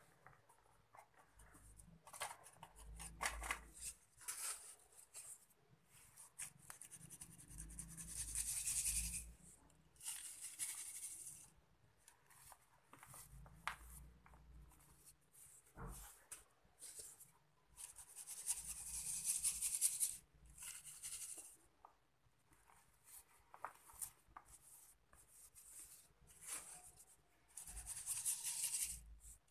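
Dry sand-and-cement powder being scooped and rubbed by hand, with several long hissing pours of falling grains and short gritty scrapes in between; near the end, powder is shaken through a sieve.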